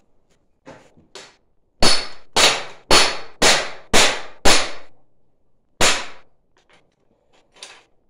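Sharp metallic clacks of a steel hand tool striking brass and stainless pipe fittings. Six come in quick succession about half a second apart, then one more a second later, each with a short ring, among a few lighter clicks.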